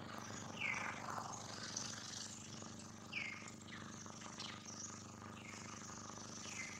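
Birds chirping: short high calls that drop in pitch, a few seconds apart, over a steady low hum.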